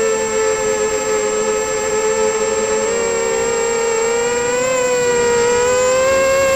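Four brushless motors and propellers of a small FPV quadcopter whining in flight, picked up by a camera mounted on the quad. The pitch wavers as the throttle changes, splitting into several separate pitches about halfway through as the motors run at different speeds, then rising slightly near the end.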